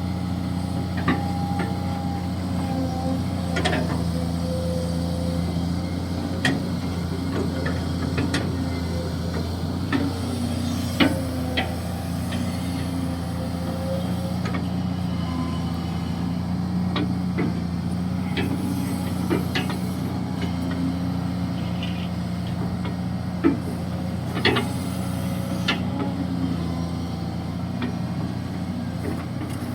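Kobelco SK200-6 Super hydraulic excavator's diesel engine running steadily under digging load, its note shifting slightly, with scattered short sharp knocks and clanks.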